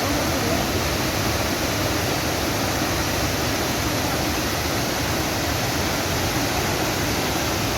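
Abbi Falls' waterfall pouring in a loud, steady rush of water.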